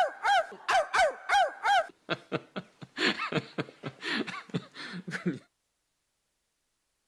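A woman's voice imitating a dog barking: a string of short 'arf'-like barks, each rising then falling in pitch, about three a second, followed by a looser run of barks that cuts off suddenly about five seconds in.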